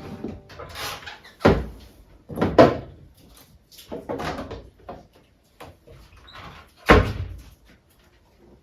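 A series of knocks and thuds, the loudest about one and a half, two and a half and seven seconds in, with quieter clatter between.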